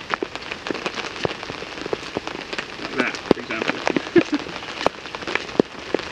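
Heavy rain falling on a tarp shelter overhead, a steady patter with many sharp, irregular drop taps.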